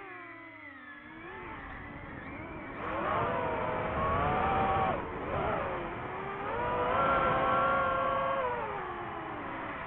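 DJI FPV drone's electric motors and propellers whining, the pitch sliding with the throttle. It drops low at first, climbs about three seconds in and holds, dips briefly in the middle, climbs again, then falls away near the end.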